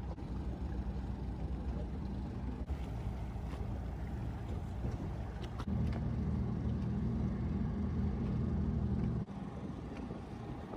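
Low, steady marine engine drone of a vessel manoeuvring in harbour. It jumps louder abruptly a little past the middle, holds for about three and a half seconds, then drops back.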